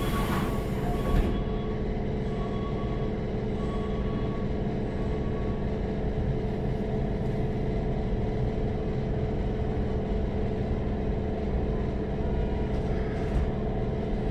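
Interior of a standing Keikyu 1500-series electric train car. The sliding doors thud shut about a second in, and the car's onboard equipment then hums steadily with the doors sealed. There is a short knock near the end.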